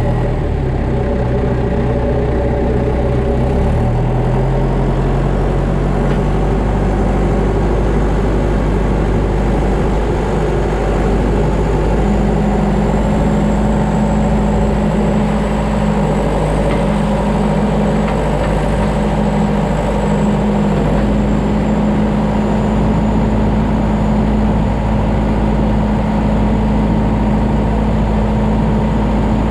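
Farm tractor's diesel engine running steadily under load while working a front-end loader, with its note shifting about four seconds in and again around twelve seconds in.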